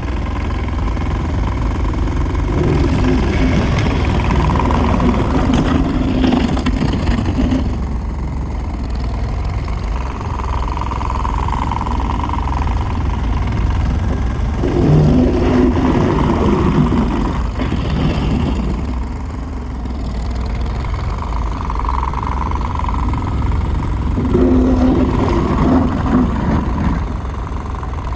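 Tractor engine running steadily as it pushes snow with a plow, swelling and easing off three times as the load comes and goes.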